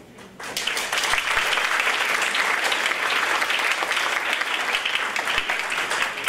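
Audience applauding: many hands clapping, starting about half a second in and holding steady.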